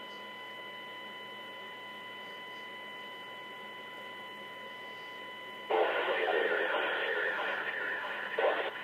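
Live police radio scanner stream played through a computer speaker: a steady hum with a thin electrical whine, then about six seconds in a sudden burst of radio static as a transmission keys up, followed by short crackles near the end.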